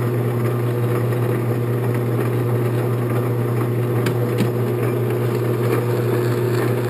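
Late-1950s 10-inch Sheldon metal lathe running steadily with a hum from its motor and gearing, the carriage under lead-screw power feed on a threading pass in PVC stock. Two faint clicks come about four seconds in.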